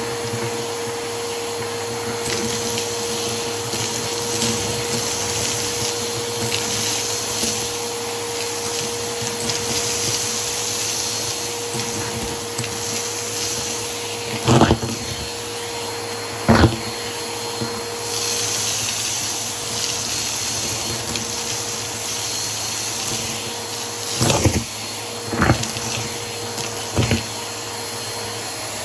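Vacuum cleaner with a dusting brush attachment running steadily with a constant whine. There are brief knocks: two about halfway through and three more near the end.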